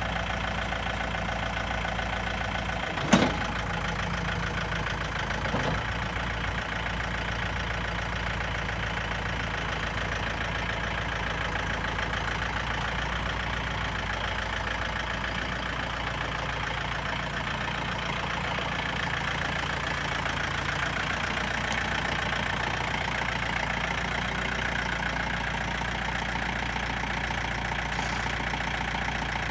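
2006 John Deere 4320 compact tractor's diesel engine idling steadily, with one sharp knock about three seconds in.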